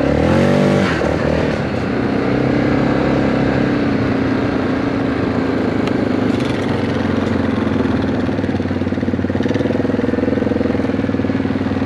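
Four-wheeler (ATV) engine running under way, rising in pitch briefly near the start, then running steadily.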